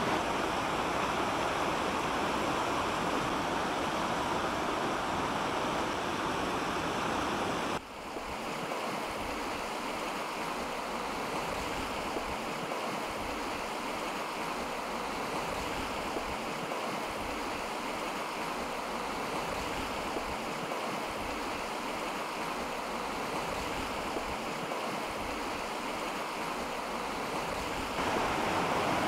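River Esk in flood: brown floodwater rushing and churning in a steady noisy rush. The sound drops suddenly about eight seconds in and gets a little louder again near the end.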